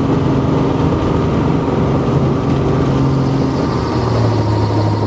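Helicopter engine and rotor running on the ground, a steady hum heard from inside the cabin. The pitch of the hum steps slightly lower about four seconds in.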